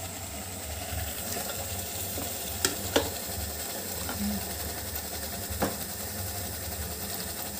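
Masala paste frying in oil in a metal pot on a gas stove, a steady sizzle, while pressure-cooked goat head pieces are ladled in. A few sharp clinks of a steel ladle against the metal come a little before the middle and again later.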